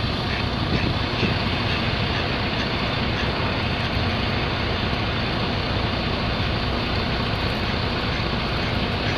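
Vehicle engine idling with a steady, even rumble. A few faint mallard quacks sound in the first second.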